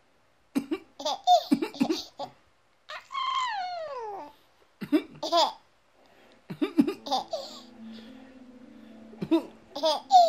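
A baby laughing happily at an adult's coughing, in repeated short bursts with sharp cough-like onsets, and one long falling squeal of laughter in the middle. A simple tune of steady held notes starts about seven seconds in.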